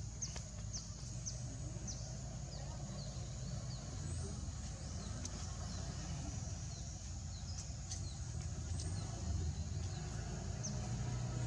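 Outdoor ambience: a steady low rumble with many short, high chirps scattered throughout.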